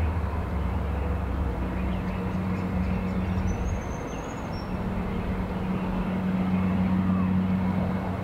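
Steady low engine hum from an unseen vehicle, with a brief high bird chirp about halfway through.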